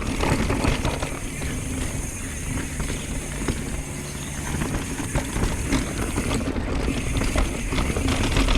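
Mountain bike descending a dirt singletrack: tyres rumbling over the trail, the frame and chain rattling with many small knocks, and wind on the helmet-mounted mic. The Industry 9 Hydra rear hub buzzes when the bike coasts.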